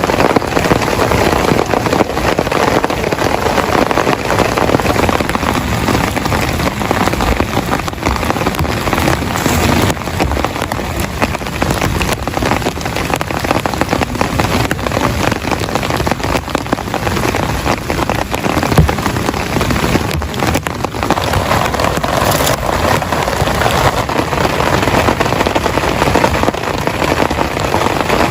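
Heavy rain falling steadily on a tent, a dense even hiss of countless drop impacts.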